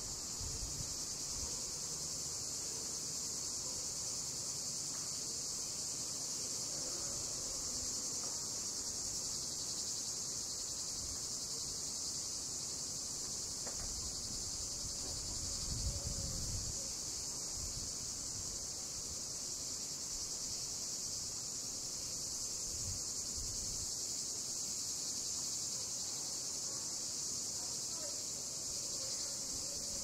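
A chorus of cicadas buzzing in one steady, unbroken high-pitched drone, with a brief low rumble about halfway through.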